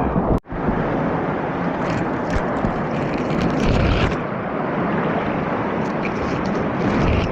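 Whitewater rapids rushing: a steady, dense roar of moving water on a big-volume river, heard from on the water. The sound cuts out for an instant about half a second in.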